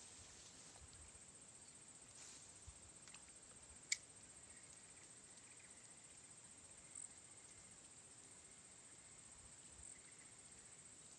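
Near silence with a faint, steady, high-pitched insect drone, and one sharp click about four seconds in.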